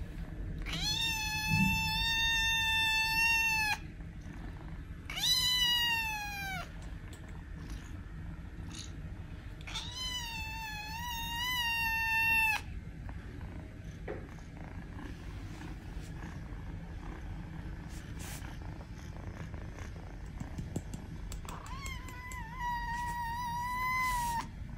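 Kitten meowing four times in long, drawn-out calls of about two to three seconds each. The second call slides down in pitch, the third wavers, and the last comes after a long pause.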